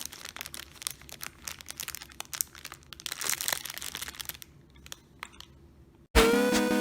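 Crinkling and crackling handling noise, a quick run of small clicks that thins out after about four seconds. Music starts abruptly near the end.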